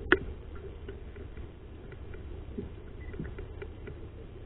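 Spinning reel being cranked, light scattered ticks over a low steady rumble, with one sharp click just after the start.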